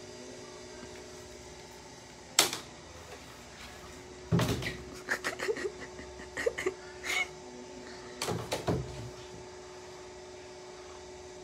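A single sharp click a couple of seconds in, then two runs of quick knocks and thumps against a wooden door, about four and eight seconds in: a kitten bumping into the door after a toy stick. A faint steady hum runs underneath.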